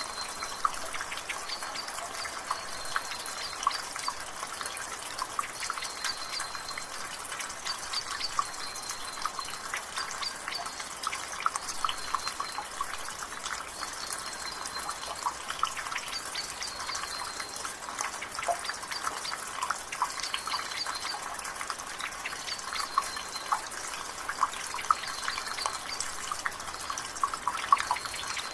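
Water dripping and splashing from a gutter in light rain, an even patter of many irregular drips over a steady hiss. A bird's short high note repeats faintly every second or two behind it.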